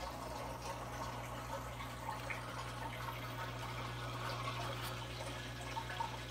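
Aquarium filter running: steady trickling and bubbling water with small scattered plinks, over a low steady hum.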